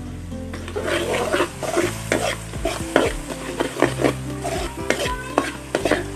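Metal spatula scraping and clinking against a wok, stirring food in sizzling oil. The strokes come several times a second from about half a second in.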